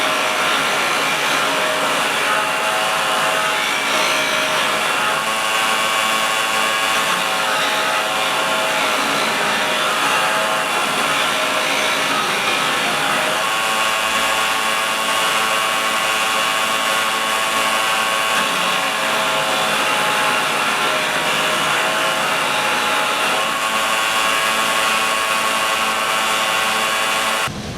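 Electric grinder running steadily with a high whine while grinding a steel bolt down into a bandsaw blade guide. It shuts off abruptly near the end.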